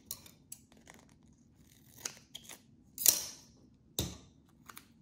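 Scissors cutting a small piece of duct tape, with light crackling of the tape as it is handled; a sharp snip about three seconds in is the loudest sound, followed by another sharp click about a second later.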